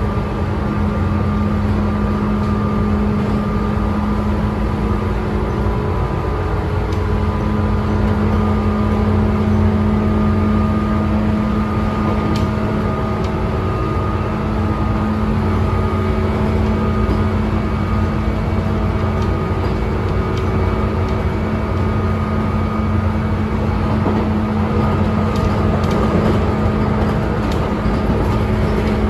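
Running sound inside a Tobu 9000 series chopper-controlled motor car at speed: a steady rumble of wheels on rail with several steady humming tones from the traction equipment. A few faint clicks come about twelve seconds in and again near the end.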